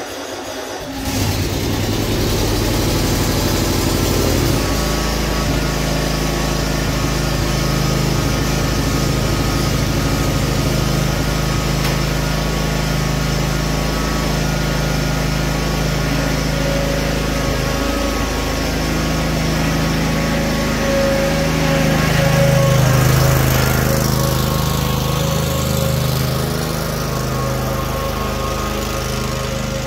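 Cub Cadet RZT-50 zero-turn riding mower's engine running steadily as the mower drives out, running again after a replaced carburetor and crankshaft seal. It gets louder suddenly about a second in, shifts pitch a few times, and swells again as it passes closest about two-thirds of the way in.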